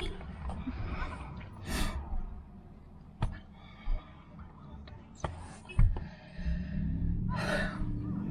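A person's breathy exhales and sighs, the two strongest about two seconds in and near the end, with a few sharp slaps as the hands meet while signing. Low voiced mouth sounds run under the last couple of seconds.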